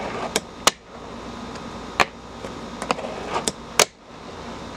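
Fingerboard ridden with the fingers across a plastic tabletop: about half a dozen sharp clacks at uneven intervals as the little deck pops and lands, with the soft rattle of its wheels rolling in between.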